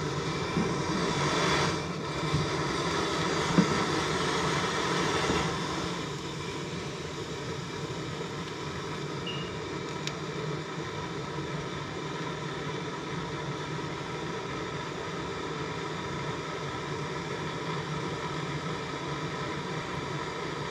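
Gas blowtorch flame burning steadily as a copper pipe joint is heated for soldering. It is louder for about the first six seconds, with a couple of small knocks, then settles to a steady, quieter level.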